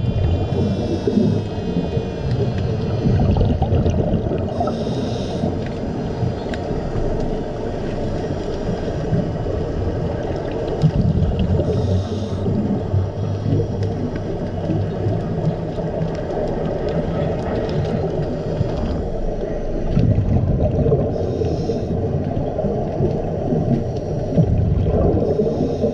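Scuba regulator breathing heard through an underwater camera: short hissing inhalations about four times, each followed by a surge of bubbling from the exhalation, over a steady low underwater rumble.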